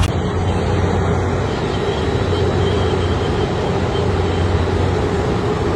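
Steady, loud drone of machinery running beside a parked airliner: a low hum under a rushing noise, with a faint high whine.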